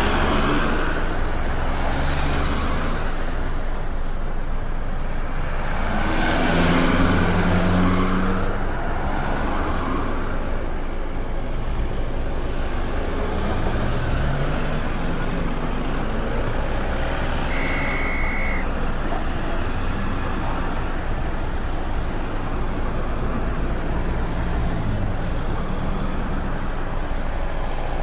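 Busy city street traffic: a steady mix of car and truck engines running and passing. A heavier vehicle gets louder as it passes about a quarter of the way in, and a short, high, steady beep sounds about two-thirds of the way through.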